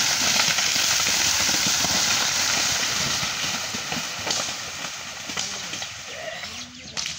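Racing buffalo pair splashing through the water-filled Kambala track: a loud, steady rush and splash of churned water with heavy knocking underneath. It dies down over the last few seconds.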